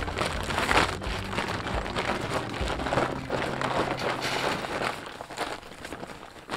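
Fiber-reinforced plastic greenhouse covering crinkling and rustling as its door flap is rolled up by hand, growing quieter near the end.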